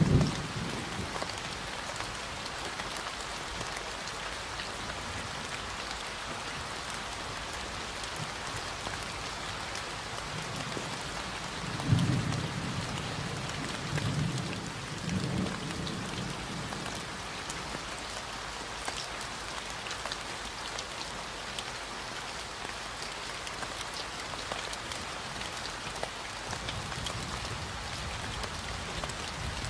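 Steady rain falling, a dense hiss with many small drop ticks. Low rumbles of thunder come in at the start and again near the middle, rolling on for a few seconds.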